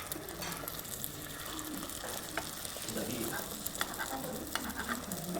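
Eggs frying in hot oil in a pan, a steady sizzle crackling with many sharp little pops and clicks.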